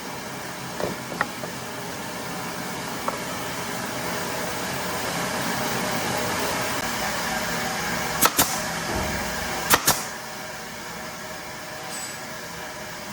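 Steady mechanical whirring hum that swells a little in the middle, with two pairs of sharp knocks about eight and ten seconds in.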